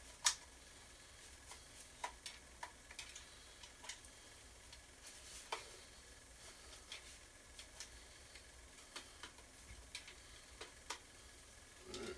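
Irregular light clicks and taps of small hard plastic parts and packaging being handled, with a brief soft rustle near the end.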